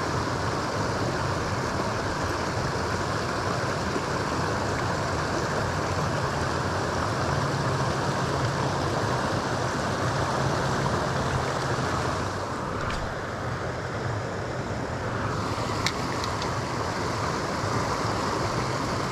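A steady rushing noise of water and wind outdoors. The hiss thins out for a few seconds about two-thirds of the way in, then comes back.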